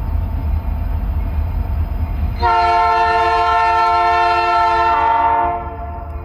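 Canadian National diesel locomotive's air horn sounding one long chord of several tones for about three seconds, starting a couple of seconds in, over a steady low rumble.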